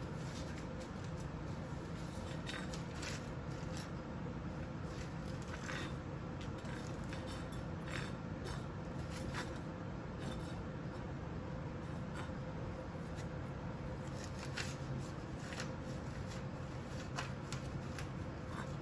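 Scattered light clicks, taps and rustles as kittens play with a metal jar ring and a mesh avocado bag, over a steady low room hum.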